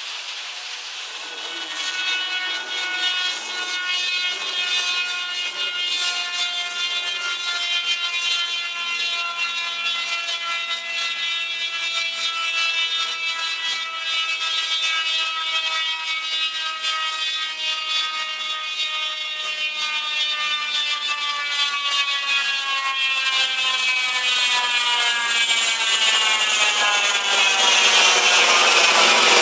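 Turbocharged Proton Perdana running on a chassis dyno, heard as a high whine with several overtones. The pitch slowly falls for about twenty seconds, then rises again as the sound grows louder near the end.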